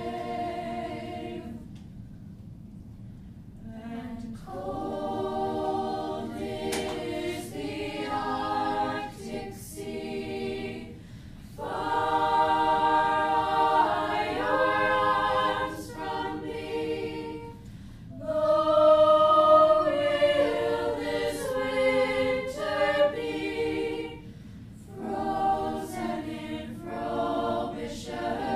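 A choir singing in harmony, phrase by phrase with short breaths between phrases.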